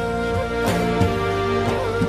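Instrumental background music with held notes, a slowly moving melody and a few soft beats.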